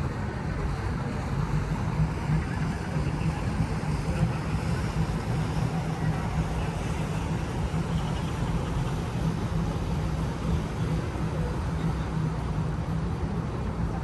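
Steady city din with a constant low engine-like hum and rumble.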